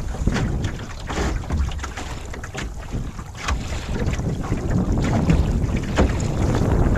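Strong wind buffeting a smartphone microphone fixed to a small sailboat's gunwale, with water splashing and slapping against the hull. The wind eases a little midway, then builds again.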